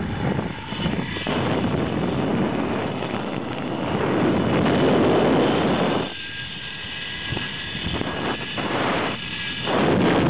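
Zip-line trolley pulleys running along the steel cable at speed, mixed with wind rushing over the microphone. The rushing swells about four to six seconds in, drops suddenly, then rises again near the end.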